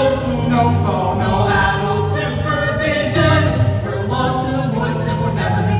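A stage-musical song: several voices singing together in sustained notes over band accompaniment.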